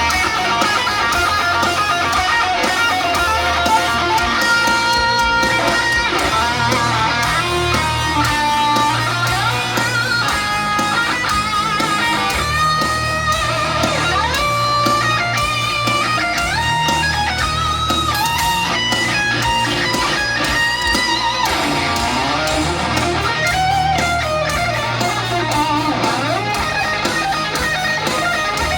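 Heavy metal band playing live. A lead electric guitar plays a melodic passage with bent, sliding notes and quick runs over bass and drums, with no vocals.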